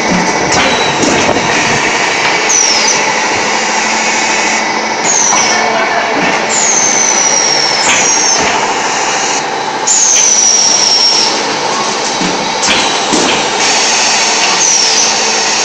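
MM600 terrazzo floor tile making machine running: a loud, steady mechanical hum, broken by about six high squeals that slide down in pitch, two of them drawn out.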